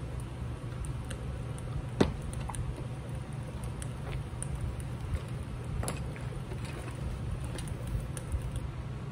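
A steady low hum with a few sharp knocks of things being set down on a glass tabletop, the loudest about two seconds in and another near six seconds.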